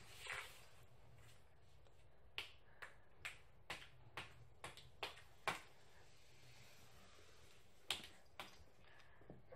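A run of light, sharp taps, about two a second, then a pause and a few more near the end: the stick of a cat-teaser wand toy knocking on the floor.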